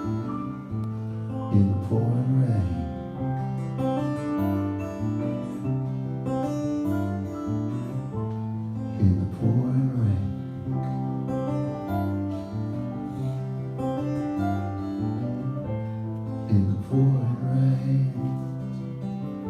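Instrumental music with guitar, chords changing about every second, and louder strummed or plucked flourishes about two seconds in, near the middle and near the end.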